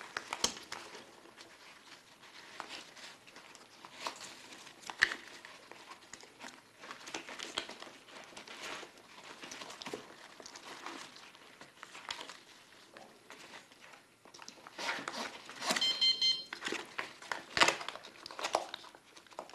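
Plastic infusion bag and fabric pump carrier bag being handled: scattered crinkling, rustling and small clicks, busier in the last few seconds. A brief pulsed buzzing tone sounds about sixteen seconds in.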